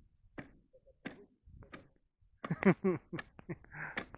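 Ice chisel striking lake ice in a series of sharp knocks, about one every two-thirds of a second, chopping through to check its thickness. A short loud voice cuts in a little past halfway.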